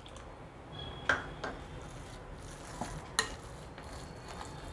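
Silicone spatula stirring and pressing a damp, crumbly mix of soaked poha, semolina and yogurt in a glass bowl, soft and faint, with a few light knocks.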